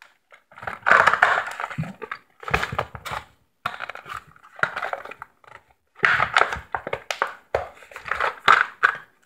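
A Hot Wheels card-and-plastic blister pack being torn open by hand, crinkling and crackling in about six bursts with short pauses between them.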